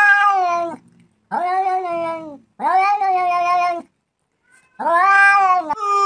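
A cat meowing loudly, a run of long, drawn-out meows of about a second each with short pauses between them.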